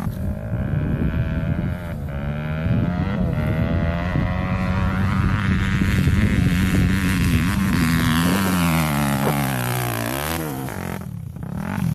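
Dirt bike engine revving hard under load on a steep hill climb. It holds high revs through the middle, falls away about eight seconds in, then dips and picks up again near the end.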